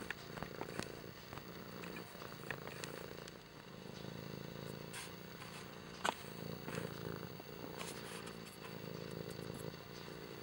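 Domestic tabby cat purring steadily up close, a continuous low rumble with a faint pulsing texture. Scattered light clicks and rustles run through it, with one sharper click about six seconds in.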